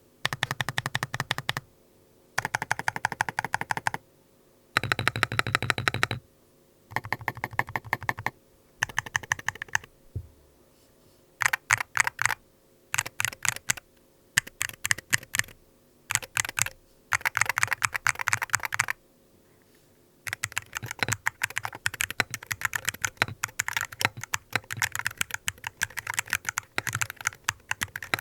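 Typing on a ZIRNEX Herald 68-M keyboard with TTC King of Magnetic switches: rapid runs of key clicks in bursts of a second or two with short pauses between them, turning into near-continuous typing for the last eight seconds or so.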